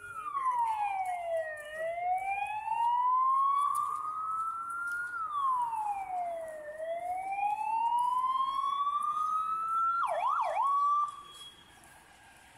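Emergency vehicle siren on a wail setting: two slow cycles, each a quick fall in pitch and then a longer rise. It switches to a brief fast yelp about ten seconds in and cuts off suddenly soon after.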